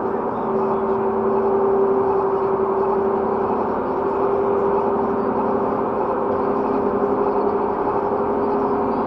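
Steady engine drone with a sustained hum, picked up by a car dashcam's microphone.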